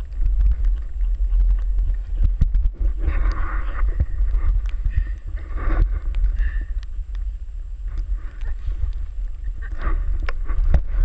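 Wind buffeting a GoPro camera's microphone, an uneven low rumble throughout, with scattered crunches and rustles of snow and padded snowsuits as people roll about in deep snow.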